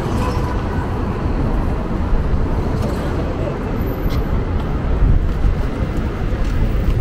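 City street traffic: a steady, low noise of engines and tyres, with passers-by talking.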